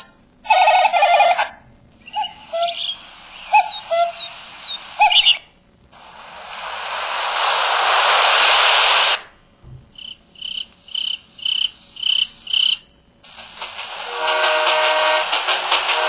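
An MS350 mobile phone playing a series of its built-in sound effects through its small speaker: a short tone burst, chirping bird-like calls, a hiss that swells steadily and cuts off suddenly, a quick run of short even beeps, then a dense buzzing tone.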